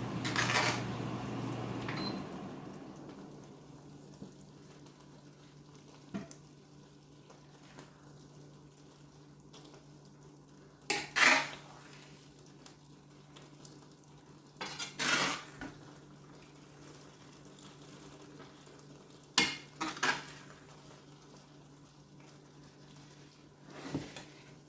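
Metal cutlery clinking and scraping against a dish in several short, separate bouts with quiet between, the loudest about eleven seconds in. A faint steady hum runs underneath.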